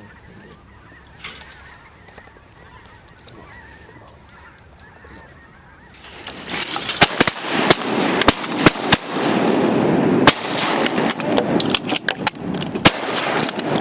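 A large flock of geese honking: a dense, loud din of many calls that sets in suddenly about six seconds in, after a few quiet seconds.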